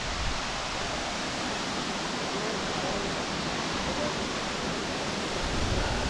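Bambarakanda Falls, a tall waterfall, giving a steady, even rush of falling water.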